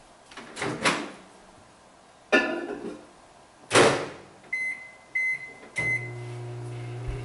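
Microwave oven door knocks open and is shut, three short keypad beeps follow, then the microwave starts running with a steady low hum, heating for 30 seconds.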